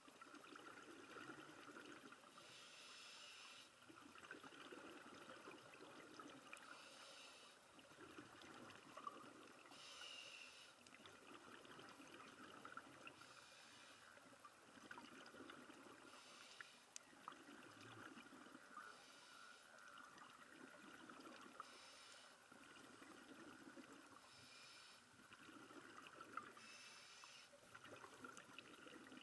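Faint scuba breathing through a regulator: a hiss on each inhalation alternating with a bubbling exhalation, repeating in a regular cycle about every three seconds.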